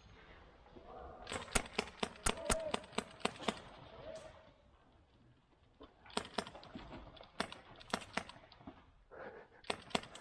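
Airsoft guns firing: a quick run of about ten sharp shots, roughly five a second, then scattered single shots and a short cluster near the end.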